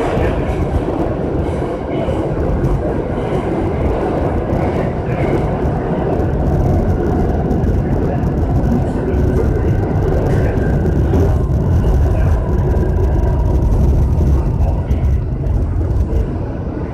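New York City Subway G train running: a steady, loud rumble of the cars and wheels on the track.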